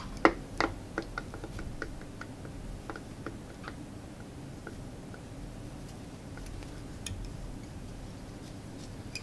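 Thread being wrapped on a fly-tying vise to tie down a marabou plume: two sharper clicks right at the start, then a string of light ticks over the next few seconds that thin out to a scattered few.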